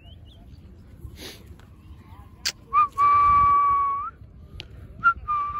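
A person whistling two long, steady notes: one about halfway through, rising slightly at its end, and another near the end. Each starts with a short chirp.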